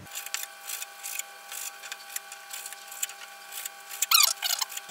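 Kitchen knife chopping raw chicken on a plastic cutting board: a run of light, irregular taps over a faint steady hum. About four seconds in, louder high, warbling chirps start up.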